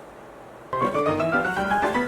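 Background piano music that cuts in abruptly less than a second in, after a low hiss, playing a quick run of separate notes.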